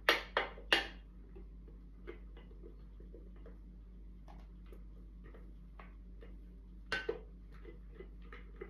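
A kitchen utensil knocking sharply against a mixing bowl three times, then light irregular ticks against the bowl as batter is folded, with two more knocks about seven seconds in.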